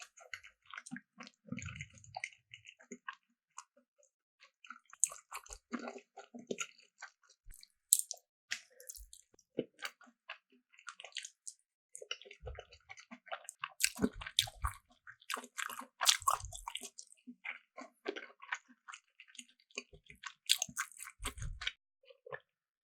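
Close-miked eating sounds: wet chewing and squishing with small sharp mouth clicks, coming in irregular clusters with brief pauses.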